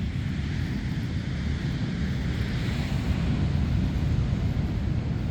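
Wind buffeting the microphone with a low, steady rumble, over surf washing on the shore, the hiss of a wave swelling about two to three seconds in.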